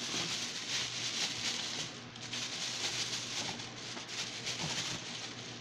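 Rummaging through a plastic storage tote: a steady rustling with light clicks as loose toys and wrappings are shifted about.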